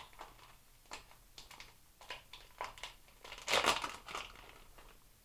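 Plastic packaging of a soft-plastic fishing bait crinkling as it is handled, in scattered short crackles, with a louder rustle about three and a half seconds in.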